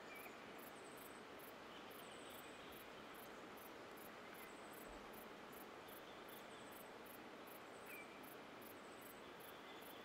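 Near silence: faint bush ambience with a very high insect-like pulse repeating about three times a second and a few faint chirps.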